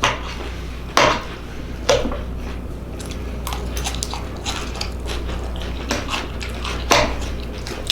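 Cutlery clinking and scraping on a plate while eating, with a few sharper clinks about one, two and seven seconds in, over a steady low hum.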